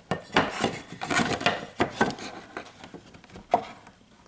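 Wooden painting boards being turned over and shifted: a run of knocks, scrapes and clatter, then one sharper knock about three and a half seconds in.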